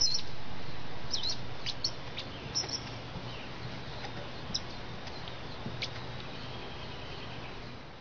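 Felt-tip marker squeaking in short high bursts against cardboard as letters are written, over a low steady hum.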